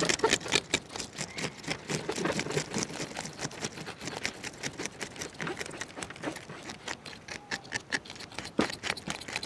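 A knife scraping the scales off a pearl spot fish (karimeen) on a metal tray: rapid scratchy strokes, several a second, with the loose scales clicking off the blade.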